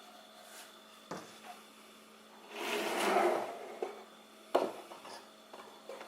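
Wooden parts being handled and fitted: a small click, then a scraping slide of wood on wood, then a sharp knock.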